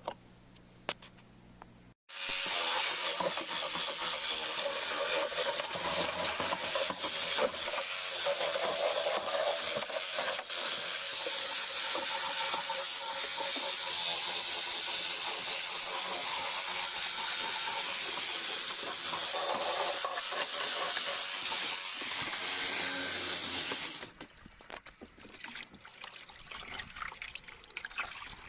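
Water running hard, starting suddenly about two seconds in and cutting off about twenty seconds later, followed by dripping and trickling.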